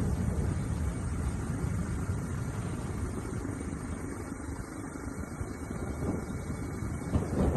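Steady low rumble of aircraft engine and air noise heard from on board, as on footage filmed from the air.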